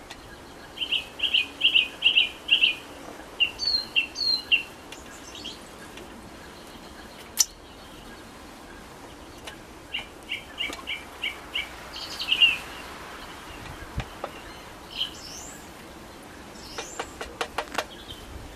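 A songbird singing: two runs of quick repeated chirping notes, about a second in and again about ten seconds in, with scattered single chirps between. A sharp click about seven seconds in and a quick series of clicks near the end.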